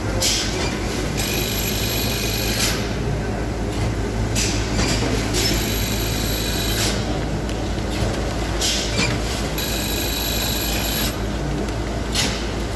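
Heavy-duty band sealer and bag-filling line running for paper bags of cat litter: a steady low machine hum, with a high hissing whine that comes and goes about every three to four seconds, in step with the line's cycle of about 16 bags a minute.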